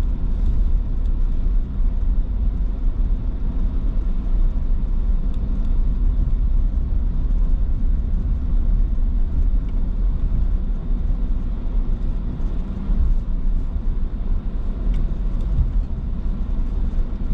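A car driving along a dirt road, heard from inside the cabin: a steady low rumble of engine and tyres.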